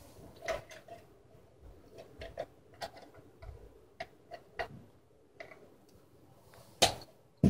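Irregular light clicks and taps, about a dozen, from small parts being handled, with a louder knock near the end.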